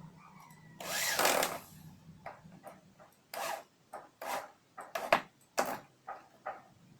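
Hands working with wood and tool parts: a scraping rub lasting about a second, then a string of short knocks and clicks.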